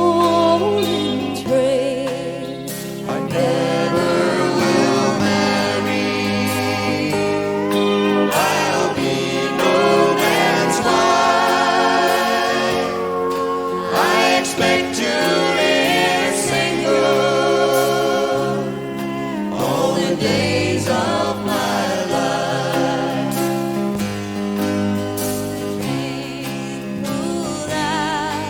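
Live country-style band music: sung vocals with vibrato, at times more than one voice at once, over bass, guitars, piano and drums.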